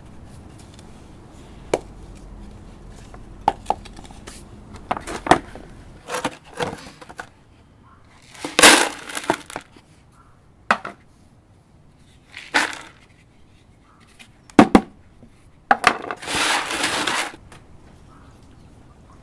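Orchid repotting: hard plastic pots, buckets and gritty stone potting mix being handled, giving scattered clicks, knocks and small clatters. Three brief pours cut through, the longest over a second near the end.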